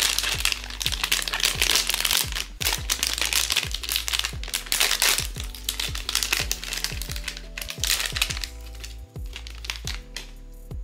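Blind-box packaging crinkling and crackling as it is handled and opened, in three long bouts, over background music with a steady beat.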